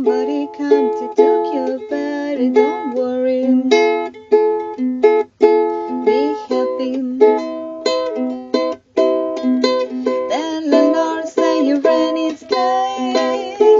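Background music: a bright tune of quick, sharply struck notes.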